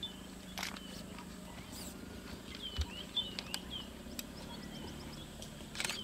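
Leopard feeding on an impala carcass: irregular crunching and tearing clicks as it eats, the strongest just before the end. Short, repeated falling bird chirps sound in the background around the middle.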